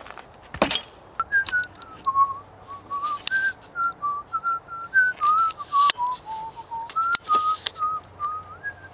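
A person whistling a wandering tune in short held notes. A few sharp clicks and crunches cut across it, the loudest near the start.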